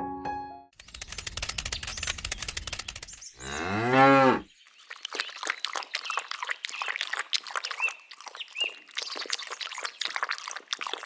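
A cow moos once, a single long moo about three and a half seconds in that bends in pitch, the loudest sound here. Before and after it runs a dense crackling noise.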